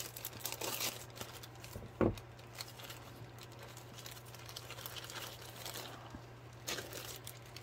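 Scissors cutting into a thin plastic mailer, then the plastic crinkling and rustling as it is pulled open and handled, with a single knock about two seconds in.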